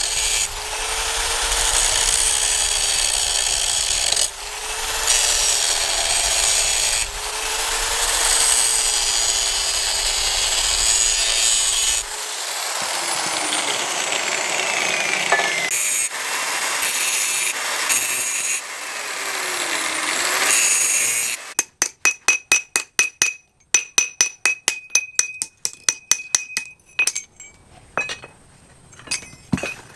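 DCA angle grinder cutting and grinding steel, a continuous loud grinding with a motor whine that wavers and dips as the disc bites. About three-quarters of the way through it stops and a hand hammer starts striking steel on a steel anvil block, quick ringing blows at about three to four a second.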